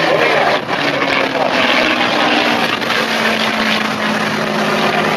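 An aircraft engine droning steadily as the aircraft flies overhead, with a low hum that drifts slowly in pitch over a rushing wash of noise.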